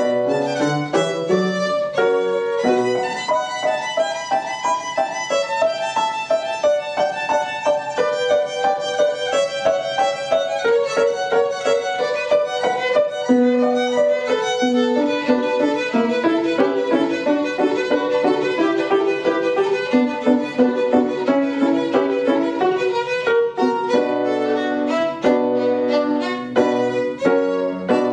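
Violin playing a classical piece in quick-moving passages of notes, with piano accompaniment underneath.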